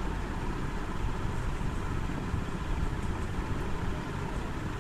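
Steady low rumble with an even hiss: background noise from an open microphone on a video call.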